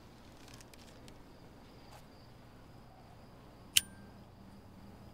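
Quiet background ambience with a faint steady high tone, broken once near the end by a single sharp click.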